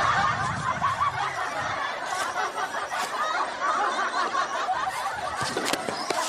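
Many people laughing and snickering together in a steady, continuous stream of laughter.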